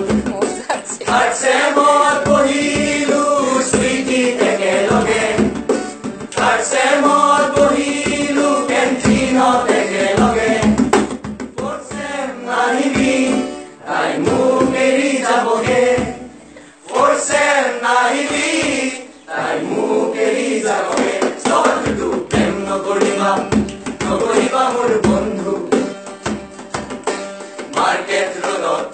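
A group of young men singing an Assamese song together in chorus, in phrases a few seconds long with short breaks between them, with a hand drum beating along.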